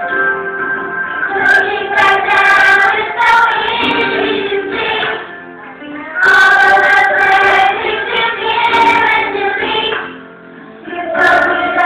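Choir singing a slow Christian worship song, with brief breaks between phrases about five and ten seconds in.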